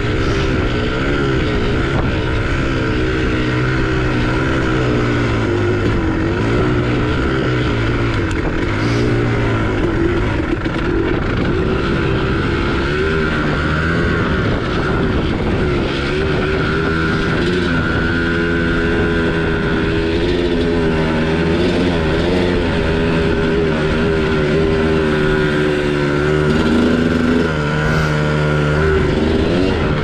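2001 Kawasaki KX250's single-cylinder two-stroke engine running under way on a dirt trail, its pitch rising and falling as the throttle opens and closes and the gears change.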